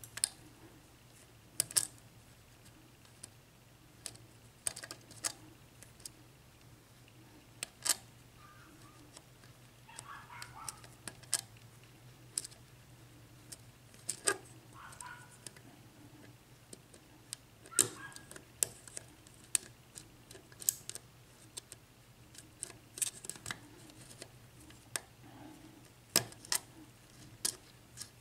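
Lock pick and tension wrench working the pin stack of a Sargent 6-pin cylinder lock: irregular sharp metallic clicks and light scrapes as pins are set one at a time, with a faint steady hum underneath.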